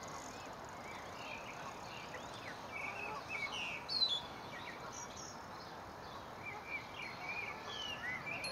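Newly hatched swan cygnets peeping: many short, high chirps and little sliding calls scattered through, the loudest about four seconds in, over a steady background hiss.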